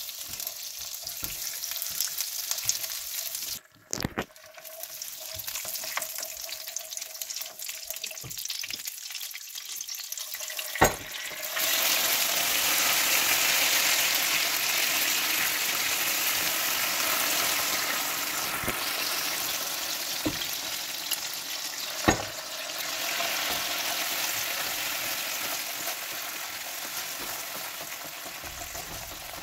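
Hot caramel of melted sugar and butter sizzling and crackling in a nonstick pan as it is stirred with a plastic spoon. About eleven seconds in, milk hits the hot caramel and the sizzle jumps to a loud steaming hiss that slowly eases off, with a few sharp knocks along the way.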